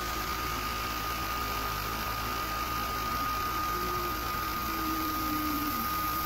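Sculpfun S30 Ultra diode laser cutter running: a steady fan and air hiss with a constant high whine, and the stepper motors whirring in short notes that shift in pitch as the laser head traces curves.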